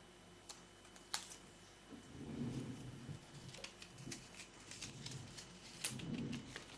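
Faint handling of paper: a handmade booklet and a cut-out paper house picked up and turned over, giving scattered small clicks and ticks with soft rustling swells.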